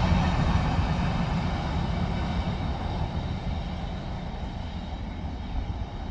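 Freight train's last covered hopper cars rolling on the rails, a steady low rumble that fades as the end of the train moves away.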